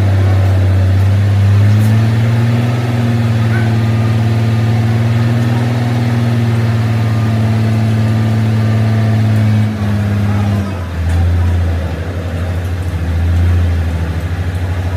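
Truck engine running steadily at raised speed, then dropping back toward idle about ten seconds in, with a brief rev near the end.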